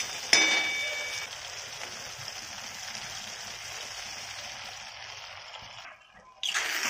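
Black val curry in green masala sizzling and bubbling in a kadhai, the sound slowly dying down and breaking off for about half a second near the end. A metal spatula clinks against the pan a moment in, ringing briefly.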